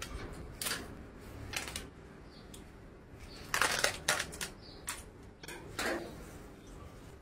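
Handling noise as a hand works at barbed wire around a trapped cat: scattered short rustles, scrapes and clicks, thickest about three and a half to four seconds in.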